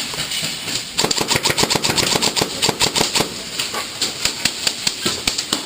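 Systema PTW airsoft electric rifle firing rapid shots: a fast rattle of clicks about a second in, then quick trigger pulls a few per second.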